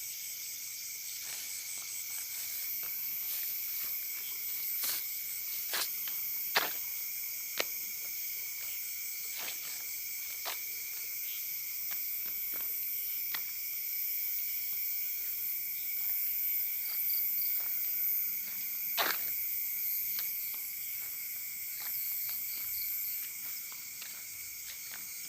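Night chorus of crickets and other insects: steady high-pitched trilling at several pitches, with scattered sharp clicks and knocks.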